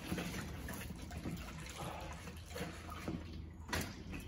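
Water splashing and trickling, with a few light knocks.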